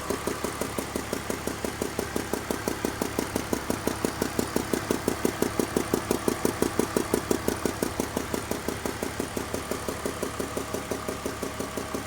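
2002 BMW 320i's straight-six engine idling with an even, rapid ticking that the owner places at cylinders 3 and 4 and suspects comes from the lifters.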